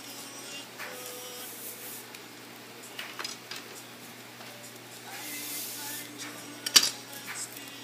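Paper rustling and scissors being handled while paper is cut and wrapped around a thin wooden stick, with short ticks and a sharp click about seven seconds in, the loudest sound.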